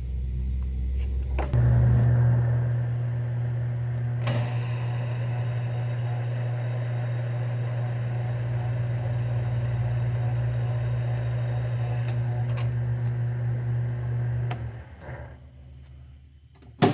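Small metal lathe's spindle motor running at a steady speed with a steady hum, turning a tap held in a T-handle against a spring-loaded center. It is switched off about fifteen seconds in and winds down to a stop. A single sharp click comes right at the end.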